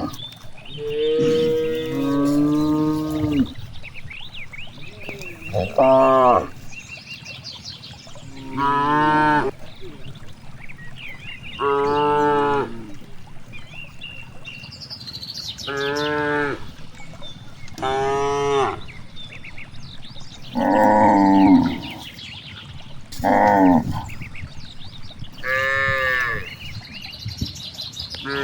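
Cows mooing repeatedly, about nine calls of a second or so each, coming every two to three seconds.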